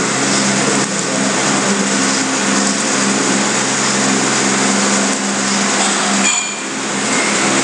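Steady machine hum over a loud hiss, like a motor running, with a brief dip about six seconds in.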